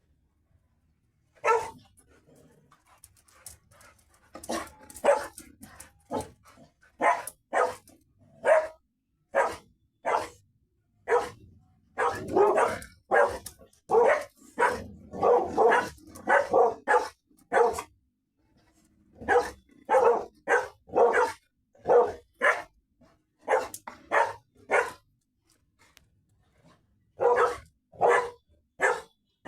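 A dog barking again and again in short single barks, with a busier run of barks in the middle and brief pauses between bouts.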